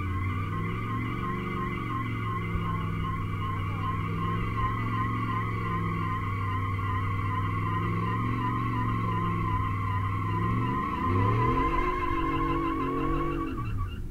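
Ford F-150 pickup doing a burnout: its engine is held at high revs while the spinning rear tyres give a high, wavering squeal. The revs climb sharply about eleven seconds in, then drop and the sound cuts off at the end.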